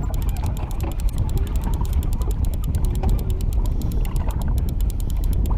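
Conventional level-wind fishing reel being cranked to wind in a hooked fish, its gears and ratchet making a rapid, even clicking. Under it runs a steady low rumble of wind and water on the microphone.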